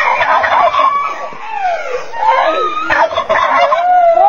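Domestic fowl calling: a run of loud calls that glide and waver in pitch, several overlapping in the second half.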